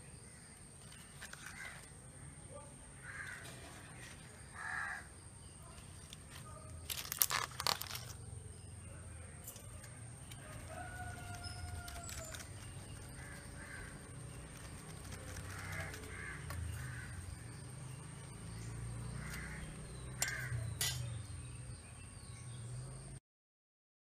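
Crows cawing now and then in the background, with a few sharp clicks about seven seconds in and again near twenty seconds.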